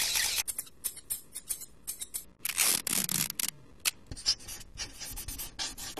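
A person imitating a sound effect with the mouth: a run of irregular short hissing and clicking bursts, with a longer, louder hiss about halfway through.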